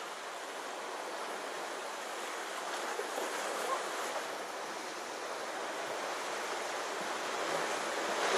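Ocean surf washing and breaking around jetty rocks: a steady rushing wash of water that swells a little near the end.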